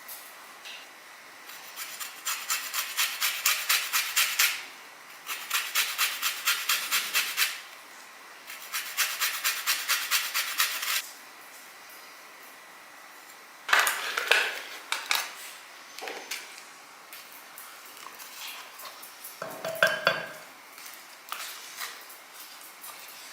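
A kitchen utensil beating rapidly against the inside of a bowl, in three spells of fast, even strokes of about five a second, followed by a few scattered knocks.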